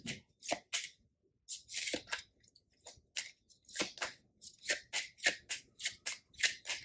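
A tarot deck being shuffled by hand: a string of short, dry card swishes, a few a second, with brief pauses between runs.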